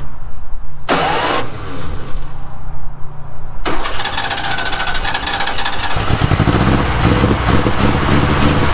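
1966 Volkswagen's air-cooled flat-four being started on a little fuel dumped into it. There is a short burst about a second in; from about three and a half seconds the engine cranks over and catches, running heavier from about six seconds. It fires, but the fuel system is not yet feeding it.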